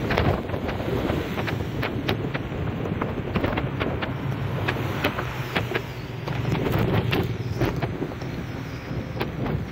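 Riding a motorcycle through heavy rain on a wet road: a steady rush of wind and road noise, with frequent sharp ticks of rain striking the microphone.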